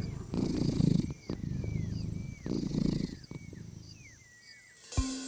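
A serval purring in rhythmic pulses of about a second each, with small birds chirping in short falling notes. Mallet-instrument music comes in near the end.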